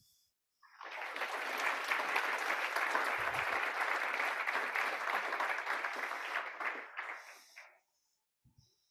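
Audience applauding, the clapping swelling in about a second in, holding steady, then dying away a second or so before the end.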